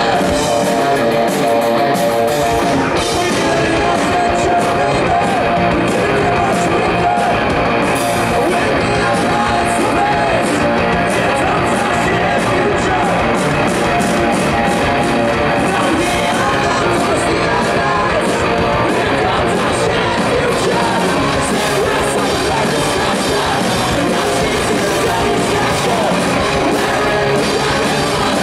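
A live rock band playing with singing and electric guitars, loud and continuous, heard from within the festival crowd.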